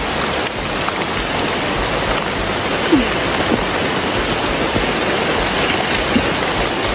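Steady rain falling on rainforest foliage, an even hiss of drops.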